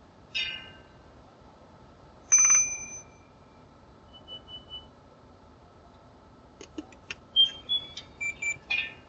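Electronic beeps and chirps at several pitches. Two ringing tones come in the first few seconds, three quick beeps about midway, then a cluster of clicks and short chirps near the end.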